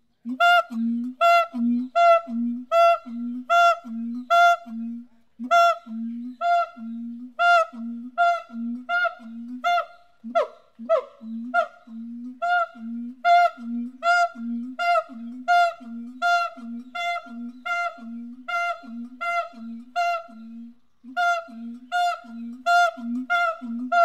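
Siamang gibbon calling: a long run of short, evenly repeated hoots, about two a second, with a few falling swooping calls about ten seconds in.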